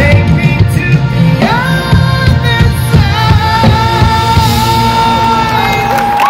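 Drum corps brass and percussion playing live and loud in a stadium: brass holds sustained chords, with notes sliding up and later falling off, over a steady pulse of drums.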